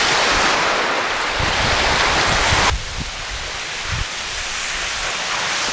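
Wind buffeting the microphone over small waves carrying slush ice onto the lakeshore. About two and a half seconds in, the sound drops suddenly to a quieter, steady wash of the slush.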